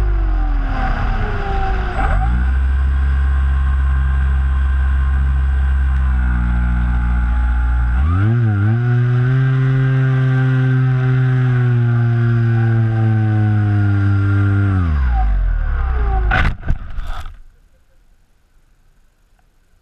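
Electric motor and propeller of an RC flying wing, heard from an onboard camera as a loud, steady hum whose pitch falls, holds, rises and falls again with the throttle. Near the end come a couple of sharp knocks as the plane comes down in the grass, and the motor sound stops.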